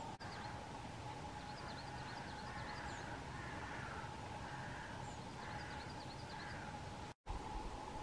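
Small songbirds giving faint, quick high chirping calls in two short runs, over a steady faint hum.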